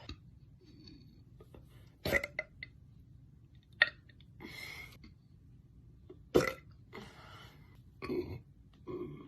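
A woman burping several times: separate short burps with pauses between them, the loudest about two seconds in and again a little past the middle.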